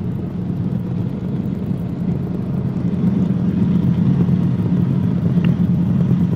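Cabri G2 helicopter's cabin noise in cruise: the steady drone of its four-cylinder Lycoming piston engine and rotors, heard from inside the cabin. It gets slightly louder about three seconds in.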